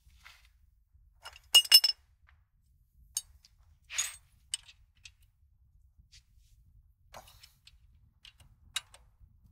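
Hand tools clinking against metal suspension parts while a cotter pin is fitted through a castle nut on a ball joint. A quick cluster of sharp, ringing metal clinks comes about one and a half seconds in, a short scrape follows around four seconds, and scattered light ticks come after.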